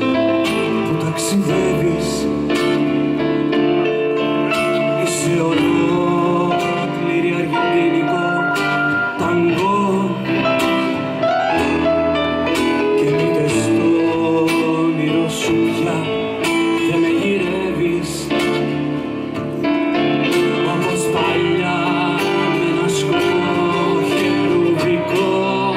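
Live band playing a song: acoustic-electric guitar, keyboard and drum kit, with singing at times.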